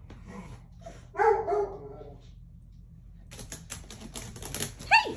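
A dog vocalizing: a loud, short whining grumble about a second in, then a rapid clatter of clicks and a brief falling yelp near the end.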